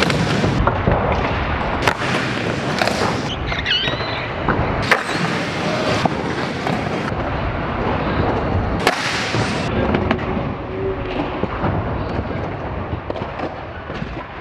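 Skateboard wheels rolling on a hard skatepark floor, with sharp clacks of board pops and landings about two, five and nine seconds in; the sound fades toward the end.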